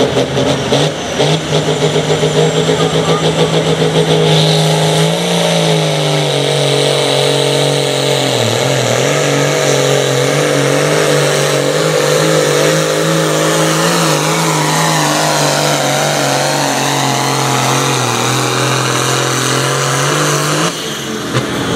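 John Deere diesel pro stock pulling tractor running at full throttle under heavy load as it drags a weight-transfer sled down the track. The engine note holds steady and loud, sags briefly about eight seconds in, and drops away near the end as the pull finishes.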